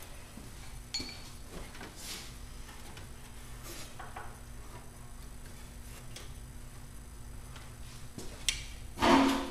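Scattered metal clinks and taps of hand tools working the drive-shaft universal joint loose, a second or two apart, with one louder clank near the end.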